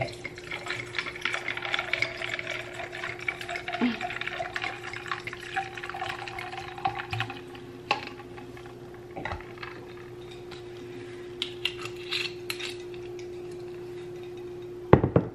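Red wine poured from a bottle over ice into a wine glass, with a tone that rises slightly as the glass fills. Then a few light glass clinks, and a louder knock near the end, over a steady low hum.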